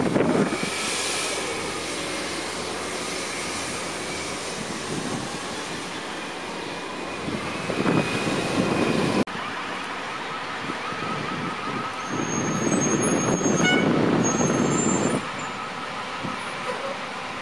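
City transit bus running and pulling away from a terminal, over steady outdoor traffic noise. The sound breaks off abruptly about nine seconds in. A louder stretch follows, with a few brief high squeaks in the middle of it.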